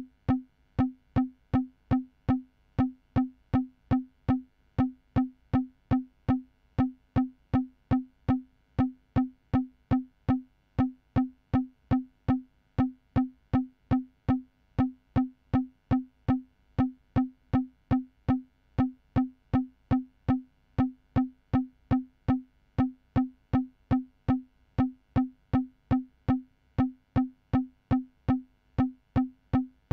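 Synthesized percussion: a short, pitched electronic hit on the same note each time, repeating steadily about twice a second, each hit dying away quickly.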